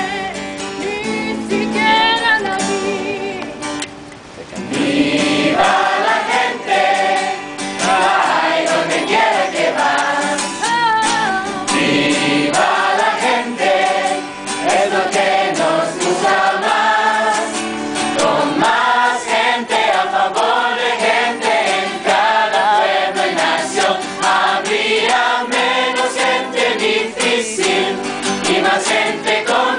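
A large mixed choir of young voices singing together with acoustic guitar accompaniment. The singing thins out briefly about four seconds in, then comes back in full.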